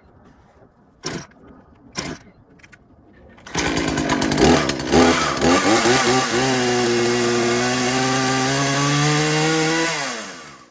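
Husqvarna 120 Mark II two-stroke chainsaw being pull-started: two sharp pulls of the starter cord, then the engine catches a little later, runs unevenly for a moment, settles into a steady run, and is switched off near the end, its pitch falling as it winds down.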